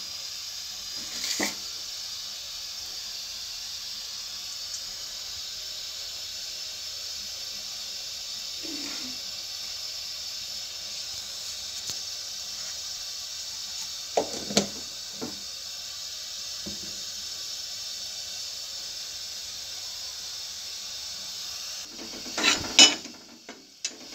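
Hot mustard oil sizzling steadily in a steel kadhai with asafoetida just added. There are a few light clinks, and a steel ladle clatters against the pan a couple of seconds before the end.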